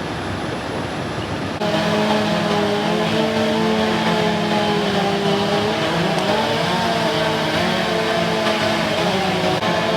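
A steady rushing noise, cut off abruptly about a second and a half in by a motor running steadily at high speed, its pitch wavering slightly.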